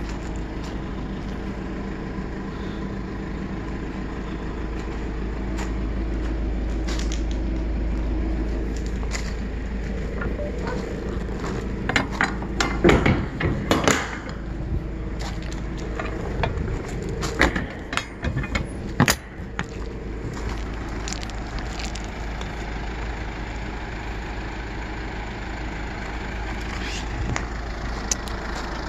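Kia Bongo 3 box truck's diesel engine idling steadily, with two clusters of sharp metal clanks and rattles around the middle as the rear box door and its locking bar are handled.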